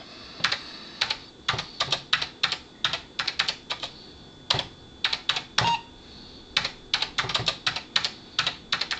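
Typing on the Apple IIc's built-in keyboard: runs of sharp keystroke clicks with short pauses between them. A little past halfway there is one brief beep, the Apple IIc's error bell as a mistyped command is rejected with a syntax error.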